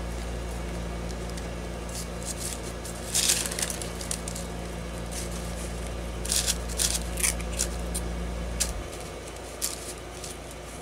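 Painted waxed deli paper crinkling and rustling as it is pressed down and peeled up by hand, in short bursts about three seconds in and again around six to seven seconds in. A steady low hum runs underneath and stops abruptly about nine seconds in.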